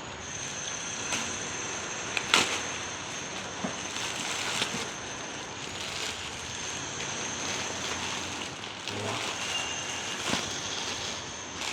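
Plastic parcel packaging rustling and crinkling as it is handled and opened, with sharp crackles throughout, the loudest a little over two seconds in.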